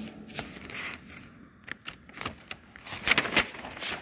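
Footsteps scuffing and grating on a bare, gritty concrete floor: a string of irregular short scrapes, loudest near the end.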